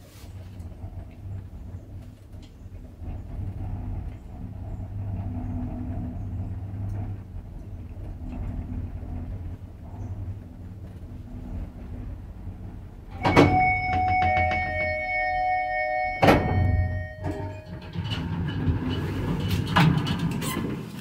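A 1990 ZREMB passenger lift travelling upward at a steady hum. About two-thirds of the way through it stops with a sharp clunk, followed by a metallic ringing of several pitches that lasts about three seconds. A second clunk follows, then the clatter of the doors opening.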